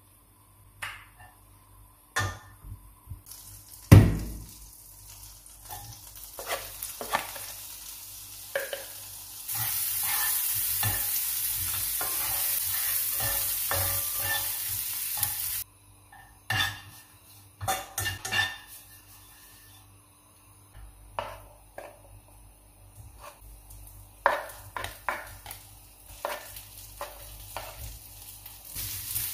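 Chopped onion frying in a nonstick frying pan while a spatula scrapes and taps against the pan in short irregular strokes. A loud steady sizzle runs for about six seconds in the middle, and there is a single heavy knock about four seconds in.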